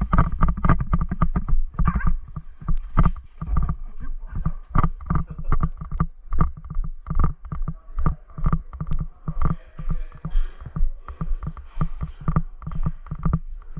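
Footsteps of a player moving through the site, thudding steadily about two to three times a second, with a few sharp clicks now and then.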